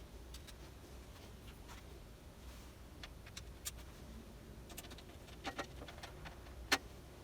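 Scattered small clicks and light taps of hands working on PC parts inside a computer case, a pair of clicks about five and a half seconds in and the sharpest click near the end, over a low steady room hum.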